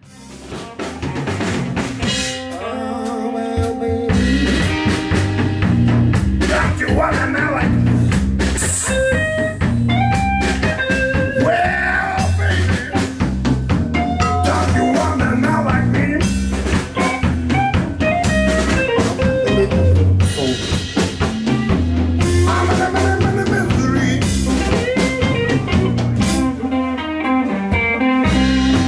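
Live blues band playing: electric guitars, electric bass guitar and drum kit, with a lead guitar line of bent notes over the rhythm. It fades in at the start, and the bass and drums come in fully about four seconds in.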